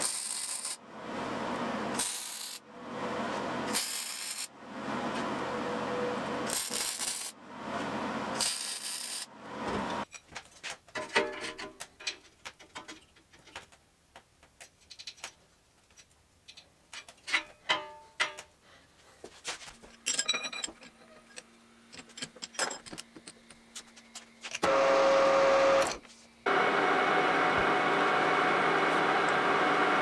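A MIG welder laying a string of short welds, one to two seconds each with brief pauses between them. Then come scattered light clicks and knocks of steel parts being handled. Near the end a metal lathe starts turning and cutting steel with a steady, even noise.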